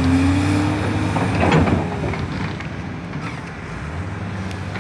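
Heavy diesel engine running, its pitch rising briefly at the start, with one loud clattering impact about a second and a half in, after which the engine runs on more quietly.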